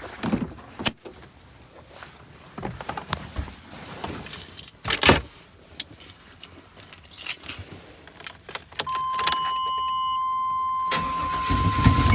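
Keys jangling and scattered clicks and knocks, then a steady electronic beep tone from about nine seconds in. Near the end the Tahoe's 5.7-litre V8 cranks and catches, running after a short crank on its newly fitted distributor and cap, which were put in to cure hard starting.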